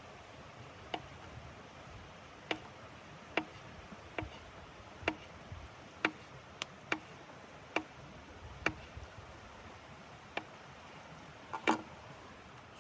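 Wood stove fire crackling: about a dozen sharp, irregular pops, roughly one a second, over a steady hiss.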